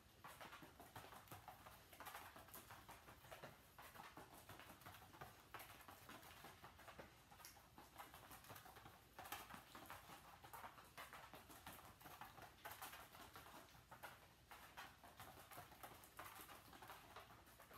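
Faint, quick pattering and clicking of a dog's paws on a matted floor as it trots around training cones.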